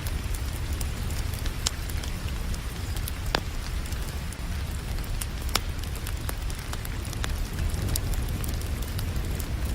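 Wood fire crackling with sharp pops at irregular moments over a steady hiss of rain and a low rumble.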